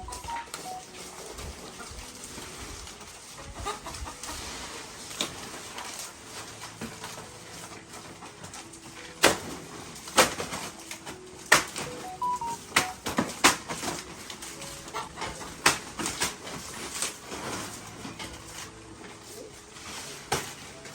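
A series of sharp, irregular knocks, about a dozen spread over ten seconds, starting about nine seconds in. Faint short bird calls sound under them.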